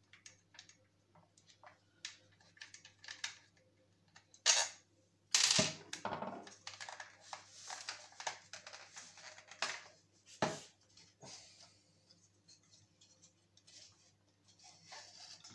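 Clicks, knocks and scraping of plastic and metal parts being handled on an opened hair dryer, with a few louder knocks and scrapes about four to six seconds in and again about ten seconds in.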